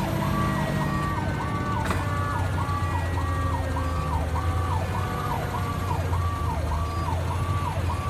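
Fire engine's electronic siren in a fast rising-and-falling yelp, about one and a half cycles a second, heard from inside the cab over the steady drone of the truck's engine. A fainter tone slowly falls beneath it.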